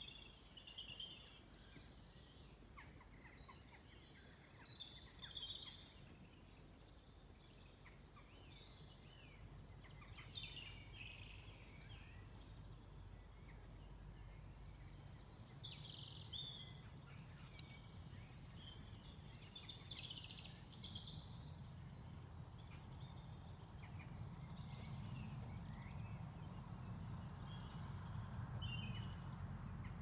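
Several songbirds sing short, varied phrases in an evening chorus, over a low rumble that grows louder in the second half.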